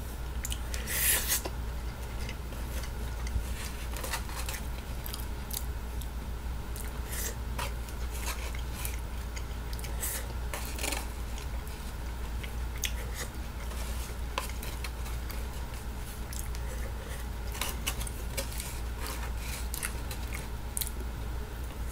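Eating sounds: scattered small clicks, rustles and scrapes of fingers picking food out of a foam takeout container, with chewing, over a steady low hum.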